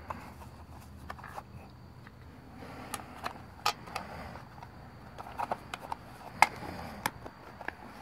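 Scattered sharp metal clicks and taps from a Zippo lighter and its metal tin box being handled and closed on a wooden stump, about a dozen in all, the loudest about six and a half seconds in, over a low steady hum.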